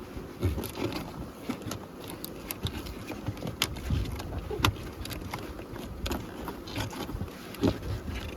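Corrugated plastic nuc boxes being folded and handled: irregular clicks, taps and dull knocks of the sheets creasing and tabs snapping into place.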